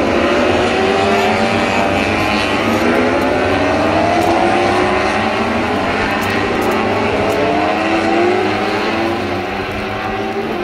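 World Superbike racing motorcycles' engines running hard past on a wet track, their pitch climbing, dropping back and climbing again several times as the riders shift up through the gears.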